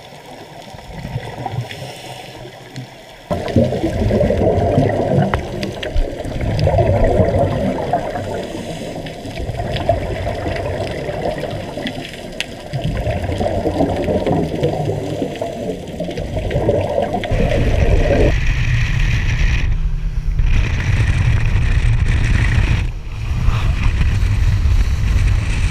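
Scuba regulator exhaust bubbles gurgling underwater in three long bursts. About two-thirds of the way through, a dive boat's engine takes over, running steadily with wind and the rush of the wake.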